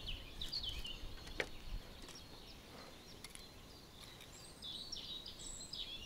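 Faint chirping of small songbirds, with short calls early on and again near the end, and a single sharp click about a second and a half in.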